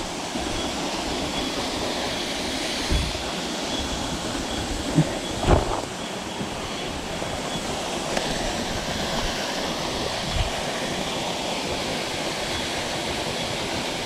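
Waterfall plunging into a rock pool: a steady rush of falling water, with a few brief soft knocks.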